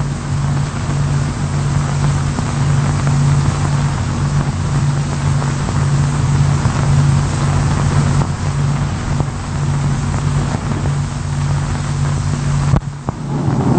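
Steady low mechanical drone, like an engine running, under a hiss, stopping abruptly near the end.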